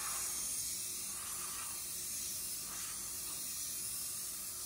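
Würth compressed-air blow gun blowing a steady hiss of air over a car body panel, clearing off the last dust before painting.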